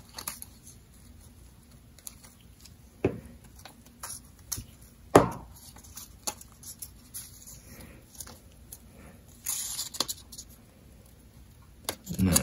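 Paper being glued, folded and pressed by hand with a glue stick that is set down on a cutting mat: soft rustles and scattered light taps, the loudest a sharp knock about five seconds in.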